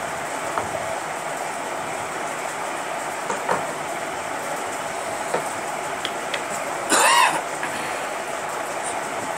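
Steady background rush with a few light clicks as the ceiling fan's motor and downrod are handled. About seven seconds in comes one short, loud squeak that rises and falls in pitch.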